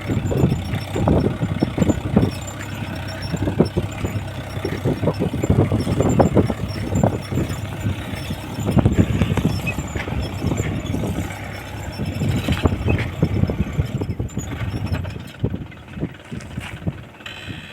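Mahindra Yuvo 415 DI tractor's four-cylinder diesel engine running under load while pulling a two-bottom reversible plough through hard soil. Its loudness rises and falls unevenly.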